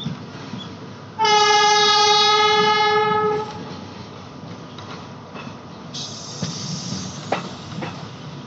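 Train horn sounding one steady blast of about two seconds, starting about a second in, over the steady rumble of the moving train. A few sharp knocks come near the end.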